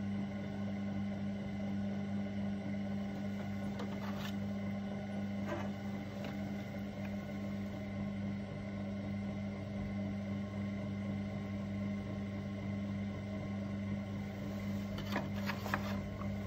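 Electric potter's wheel running with a steady motor hum, with a few faint clicks about four seconds in and again near the end.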